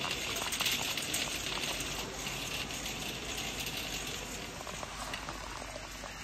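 Metal wire shopping cart rattling and clinking steadily as it is pushed along a concrete store floor, heard from a phone lying in the cart's basket.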